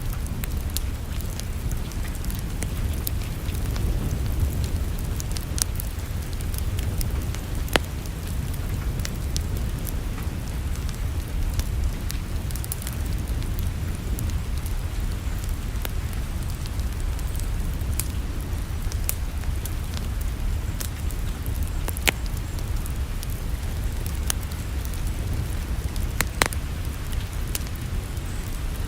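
Wood fire crackling in a fireplace: scattered sharp pops and snaps, a few louder ones, over a steady low rumble.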